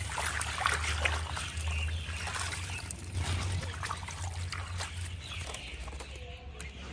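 Hands stirring and rinsing small dried fish in a stainless-steel basin of water: irregular sloshing and trickling, with many small splashes.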